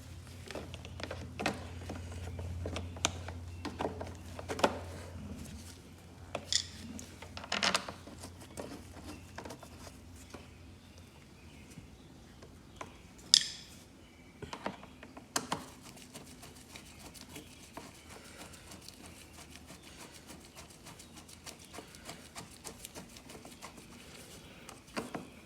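Irregular clicks and light knocks of the lawn mower's cover and fittings being handled and fastened by hand, with one sharper click about halfway through and fewer, fainter clicks near the end.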